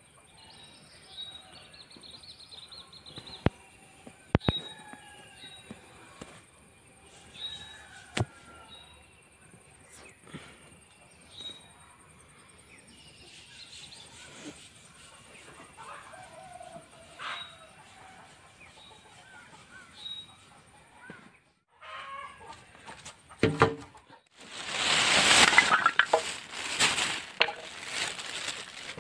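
Chickens clucking and small birds chirping over a steady high insect buzz. Near the end comes loud rustling and clattering, with sharp knocks of wooden planks being handled.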